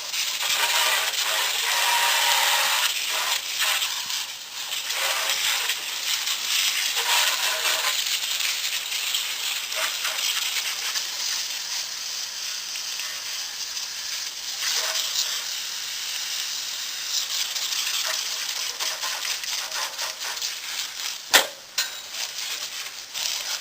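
Water spraying and spattering onto the metal tubing of a go-kart frame as it is washed, a steady hiss with uneven patter. A single sharp knock about 21 seconds in.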